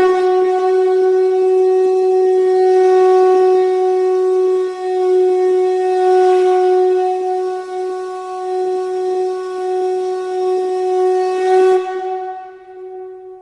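A conch shell (shankha) blown in one long, steady note that starts sharply and is held at one pitch for about twelve seconds before tailing off.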